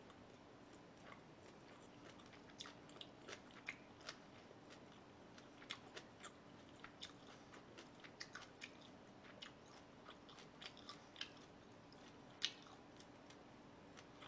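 A person chewing and biting food close to the microphone: irregular soft mouth clicks and small crunches, with one louder snap near the end, over a faint steady hum.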